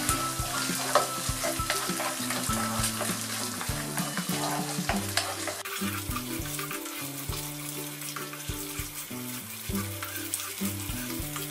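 Garlic and tomato paste sizzling in hot olive oil in a frying pan as they are stirred and roasted. The sizzle softens about halfway through. Background music plays underneath.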